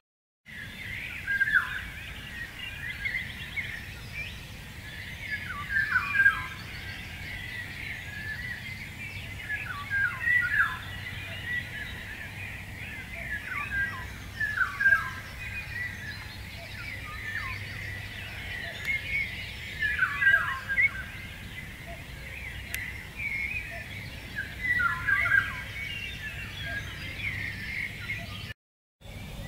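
Birds singing: short phrases of quick falling chirps that recur every few seconds, over a faint steady low hum.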